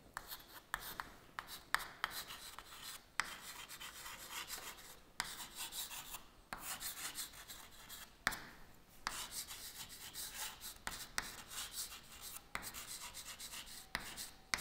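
Chalk writing on a chalkboard: runs of short scratching strokes broken by brief pauses, with sharp taps as the chalk meets the board.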